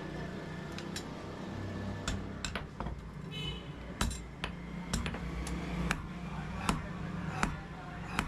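Hammer blows on steel at the anvil, sharp metallic strikes coming irregularly about once a second, over a steady low hum.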